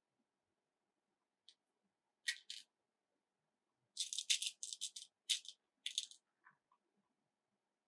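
Plastic beads rattling and clicking in a compartmented plastic bead box as fingers pick through them. There is a short double rattle about two seconds in, then a longer run of quick rattles for about two seconds.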